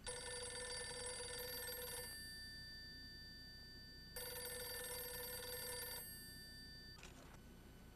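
Desk telephone's bell ringing twice, each ring about two seconds long, with a short clatter near the end as the handset is picked up.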